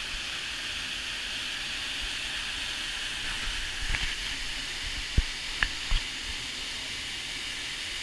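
Waterfall pouring into a rock pool, heard as a steady hiss, with three short knocks a little past the middle.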